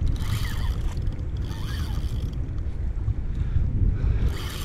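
Wind buffeting the microphone in a steady low rumble, with two short bursts of higher hiss, one at the start and one near the end.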